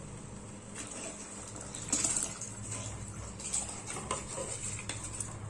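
Rice poured from a steel bowl into a large pot of boiling water: a pattering splash of grains into the water, with a few light clinks of steel on steel.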